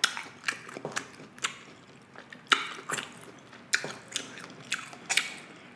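Close-miked chewing of beef kielbasa sausage: a string of sharp, wet mouth clicks and smacks, roughly two a second and irregular.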